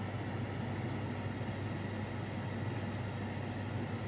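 Steady fan hum with an even hiss, unchanging and with no separate knocks or clinks.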